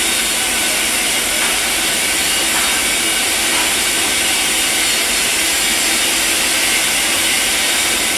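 Welding arc on a stainless steel pipe joint, a steady, even hiss with no break.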